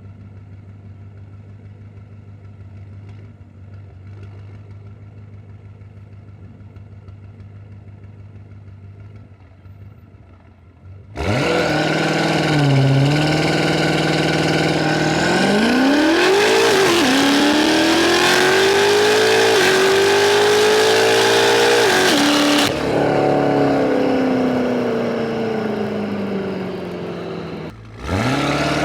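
Tuned BMW F90 M5's twin-turbo V8 idling steadily, then, about eleven seconds in, suddenly going to full throttle and accelerating hard through the gears, the revs climbing and dropping back at each of several quick upshifts. The throttle then closes and the revs wind down slowly; near the end the sound cuts briefly and a new hard acceleration begins.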